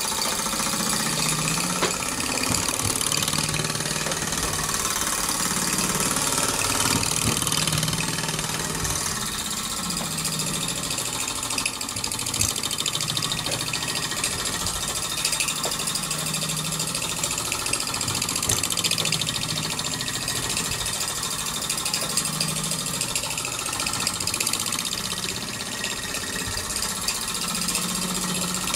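Mamod SR1A model steam roller's small live-steam engine running under steam as the roller drives along, giving a rapid, steady mechanical chuffing over a constant hiss of steam.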